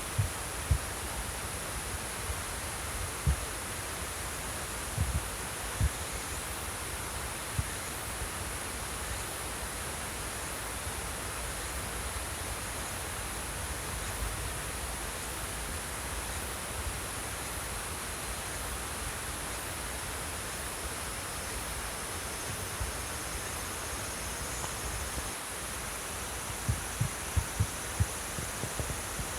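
Water flowing steadily, with insects keeping up a continuous high-pitched trill. A few low thumps come near the start and again near the end.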